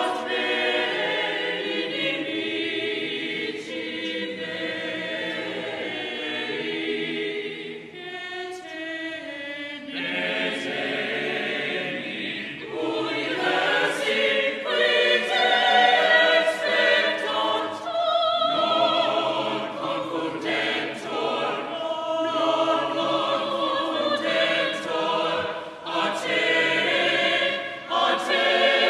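Choir singing sacred music: many voices in sustained lines. The sound thins out briefly about a third of the way in, then grows fuller and louder.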